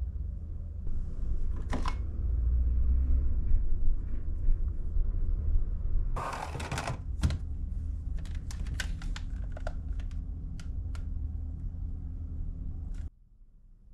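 Plastic appliances being handled: an electric kettle and then a hair dryer knocked and set down. There is a short rustle about six seconds in and a run of light clicks and taps after it, over a steady low hum that cuts off suddenly near the end.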